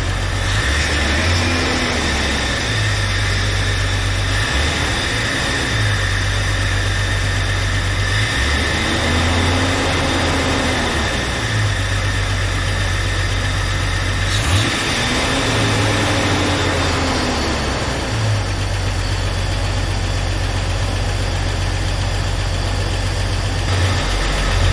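A Jeep Cherokee's replacement 4.0-litre inline-six, just swapped in, runs at idle, first running after the swap. It is revved by hand at the throttle three times, each rev rising and falling back to idle: once briefly near the start, then twice longer in the middle.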